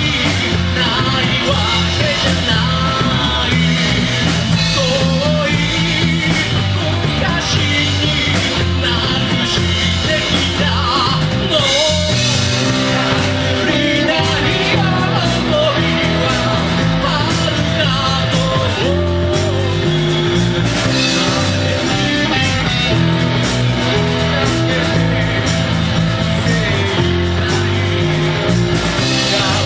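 Rock song played by a band: a lead vocal sung over electric guitar, bass and drums.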